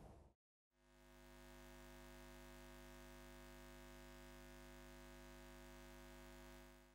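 Near silence, with a very faint steady hum of several held tones that starts about a second in and stops just before the end.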